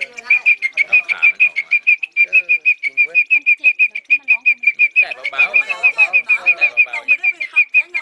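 Caged grasshopper singing a steady, even series of short, high, bird-like chirps, about six a second.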